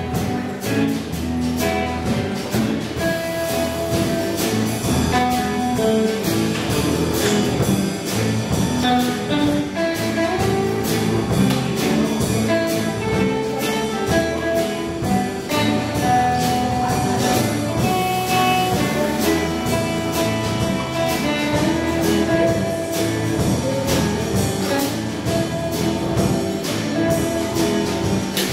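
Live small band playing: electric guitars and bass guitar over a drum kit keeping a steady beat.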